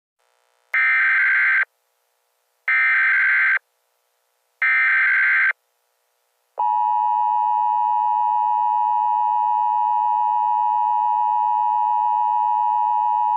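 Emergency Alert System tones. First come three one-second bursts of the SAME digital header, each about a second apart. Then, about six and a half seconds in, the steady two-tone EAS attention signal starts and holds. Together they announce an emergency alert broadcast.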